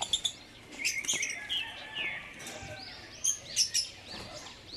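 African lovebirds chirping: a string of short, sharp, high-pitched calls from several birds, some in quick clusters.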